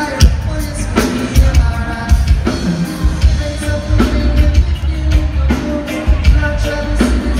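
Live reggae band playing: a sung vocal over heavy bass and drums, with loud drum hits about every second and a half.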